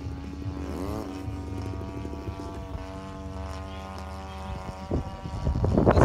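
Radio-controlled model biplane's engine running steadily at low throttle on the runway, its pitch briefly rising and falling about a second in. Near the end a louder rushing noise builds over it.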